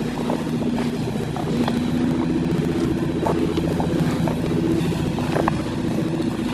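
A motor engine running steadily with a low, even hum. A few light clicks are heard over it.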